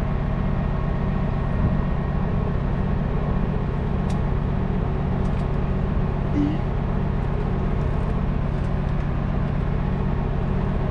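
Heavy wrecker's diesel engine idling steadily, with a few faint clinks of chain and rigging being handled.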